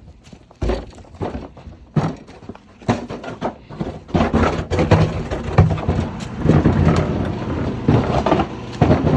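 Scattered knocks and clatter, then a motor starts running steadily about four seconds in, with more knocks over it.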